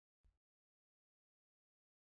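Near silence, broken once about a quarter second in by a very faint, short low click.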